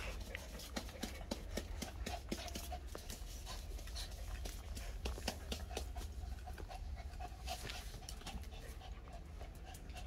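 Dog panting while one dog mounts another, with scattered light clicks of paws scuffling on a tiled floor.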